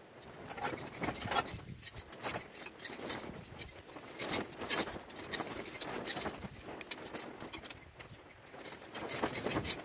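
A spanner working on the bolts of a tractor's steering column casting as they are tightened down: a run of irregular metallic clicks and clinks.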